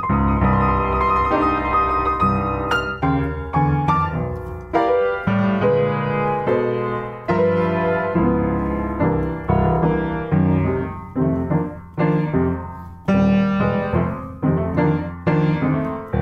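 Upright piano played with both hands in a blues: low left-hand chords under right-hand runs and chords, struck and restruck throughout.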